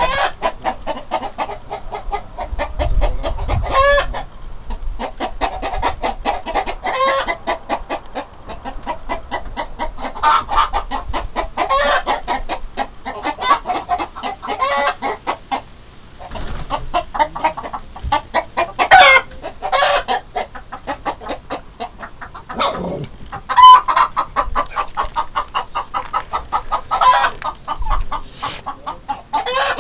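Chickens clucking in quick, continuous runs of clucks, with a few louder calls about two-thirds of the way through.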